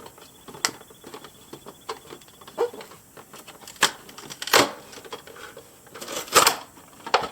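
A cardboard toy box being handled and opened: irregular clicks, taps and brief rustles of the packaging. The loudest rustles come about four and a half and six and a half seconds in.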